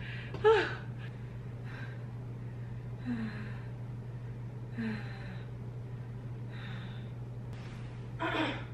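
A woman breathing hard and sighing, out of breath after a strenuous aerobics workout. A groan about half a second in is followed by long, heavy exhalations every second or two, the last one voiced, over a steady low hum.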